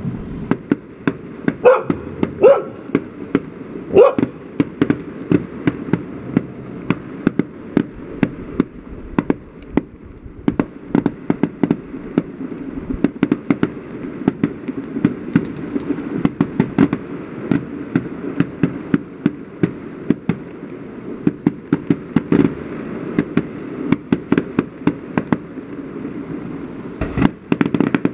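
Fireworks display: aerial shells going off in quick succession, sharp bangs several times a second. A dog barks a few times in the first four seconds or so.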